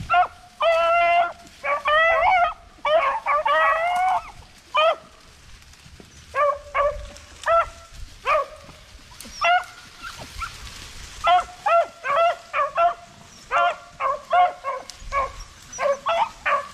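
A pack of rabbit hounds baying as they run a rabbit's trail. Several dogs give long, overlapping bawls in the first few seconds, then a string of short, choppy barks.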